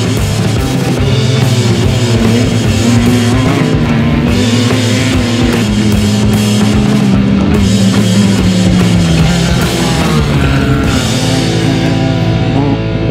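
Rock music soundtrack with a driving drum kit and electric guitar; the drums drop out near the end, leaving held guitar notes.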